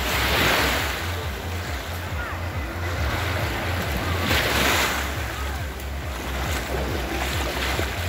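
Small Black Sea waves breaking and washing up on a sandy shore, swelling twice, about four seconds apart. Distant voices of a beach crowd and wind rumble on the microphone sit under the surf.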